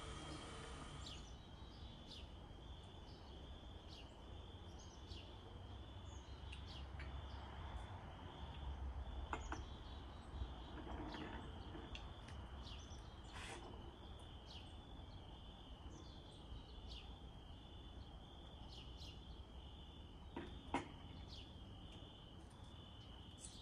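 Quiet outdoor ambience: an insect chirring in a steady, evenly pulsing high tone, with scattered short bird chirps over a low rumble. A sharp click sounds once, about 21 seconds in.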